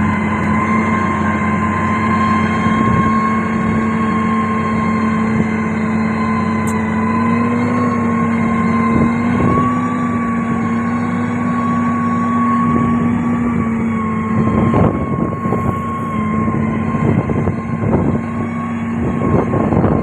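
Diesel engine of heavy road-building machinery running at a steady speed, a loud, even drone that rises slightly in pitch about halfway and eases back a few seconds later. Irregular knocks and rattles join in over the last few seconds.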